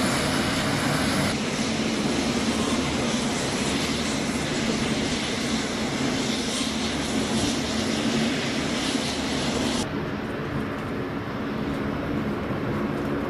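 Steady rumble and hiss of jet engines running on a military airbase flight line, with no single event standing out. The sound changes abruptly twice, and about ten seconds in it loses its highest part and turns duller.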